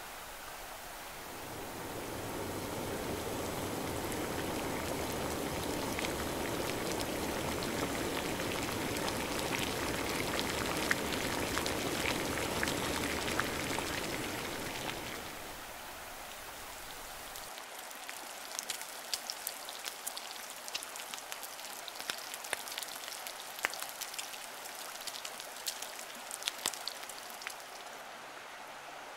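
Rushing river water, a steady wash that swells over the first couple of seconds and fades about halfway through. It gives way to a quieter stretch scattered with light ticks and drips.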